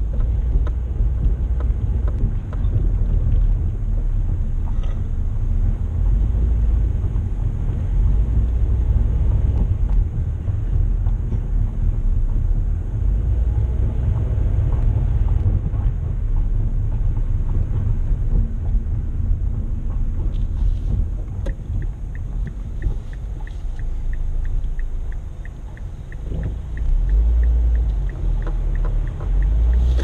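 A car driving slowly on a city street, heard from inside the cabin: a steady low rumble of engine and tyre noise. About two-thirds of the way in, a light, even ticking of about three a second starts and keeps on to the end.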